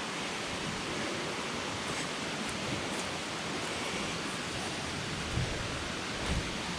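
Steady rushing of falling water from a jungle waterfall, an even hiss that does not change, with two soft low thumps near the end.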